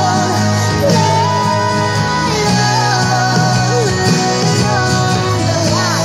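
Music: a song with a singing voice over acoustic guitar, the melody gliding and bending over steady low notes.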